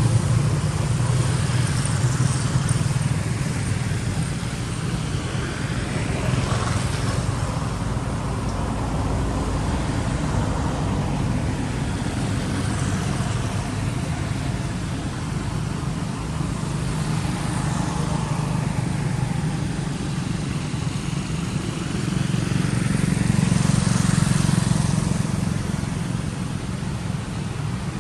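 Road traffic passing by: a steady low engine rumble with several vehicles going past one after another, the loudest about three-quarters of the way through.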